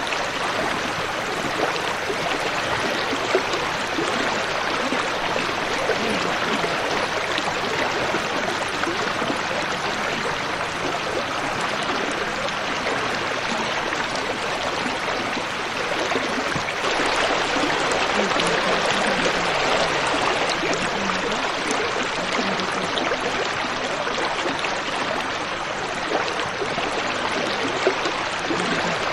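Steady rush of shallow river water around a car wading slowly across a rocky riverbed. It gets a little louder about two-thirds of the way through.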